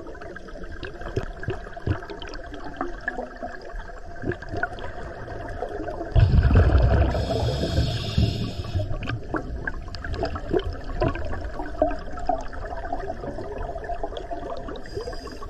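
Underwater noise picked up by a diver's camera: a constant crackle. About six seconds in comes a loud gush of exhaled scuba bubbles that lasts about three seconds.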